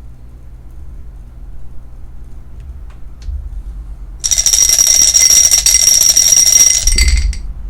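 Loud, high-pitched alarm-like ringing that starts suddenly about four seconds in and stops about three seconds later, sounding as the dice roll on the randomizer comes to its result.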